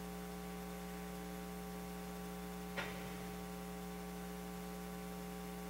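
Steady electrical mains hum with a stack of even overtones, with one faint, brief sound about three seconds in.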